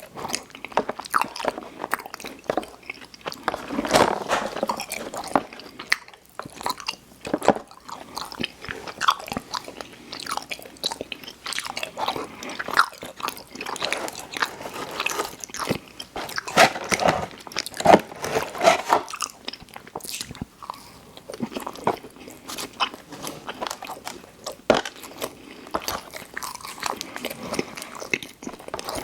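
Close-miked eating of sweets: repeated biting and chewing, a dense irregular run of short clicks and smacks.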